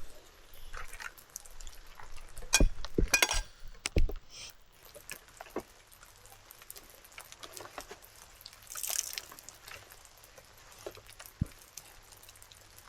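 Camp cookware and cups being handled: a quick cluster of sharp clinks and knocks about three to four seconds in, scattered small clicks, and a short hiss near nine seconds.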